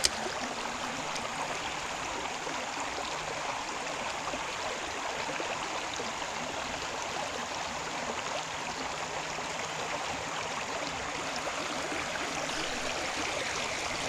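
Shallow creek water running steadily over rocks, with one sharp click right at the start.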